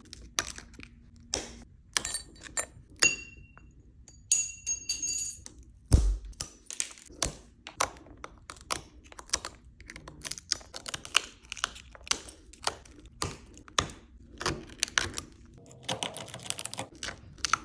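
Broken iPhone back glass being picked and pried off with hand tools: a stream of irregular sharp clicks, taps and crackles of cracked glass. There is a heavier thunk about six seconds in and a few short high ringing tones between about two and five seconds.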